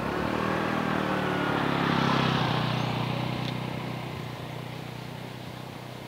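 Motorbike engine passing close by, loudest about two seconds in, then fading steadily as it rides away down the path.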